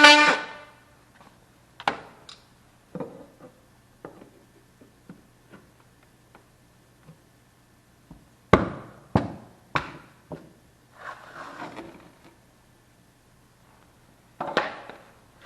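Scattered knocks and thunks of hands-on work, with three louder knocks about eight to ten seconds in and short scraping sounds after them. A brief pitched sound at the very start is the loudest moment.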